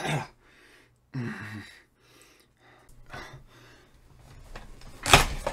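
A person's short gasps and breaths, one with a brief falling voiced sound about a second in, then a sudden loud noisy burst near the end.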